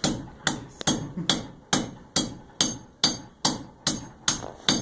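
Blacksmith's hammer striking metal on an anvil in a steady rhythm, a little over two blows a second, each blow ringing brightly. The smith is rounding the shaft of a spatula he is forging.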